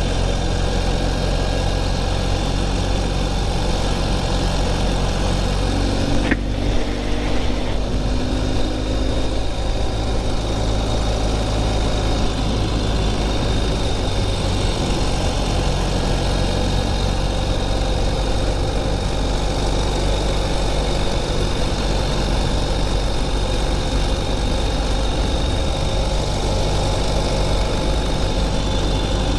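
Motorcycle engine running steadily while under way, with wind and road noise. There is a brief knock about six seconds in.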